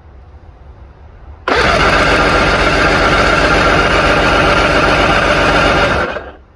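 Inline-six outboard motor turned over on its electric starter for a compression test. The cranking starts about a second and a half in, runs steadily for about four and a half seconds, and stops abruptly; the cylinder under test reads about 145 psi.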